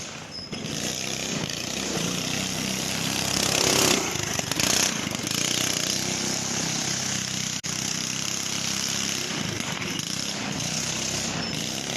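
Small go-kart engine running as the kart is ridden, a little louder around four seconds in.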